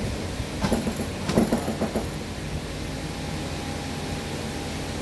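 A few metallic clinks and knocks of hand tools against a bare car engine on its stand, bunched in the first two seconds, over a steady workshop hum.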